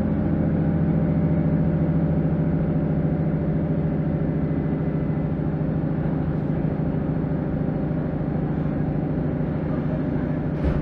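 Diesel multiple-unit train's engine heard from inside the carriage, running with a steady low drone as the train pulls away and picks up speed. A single short knock near the end.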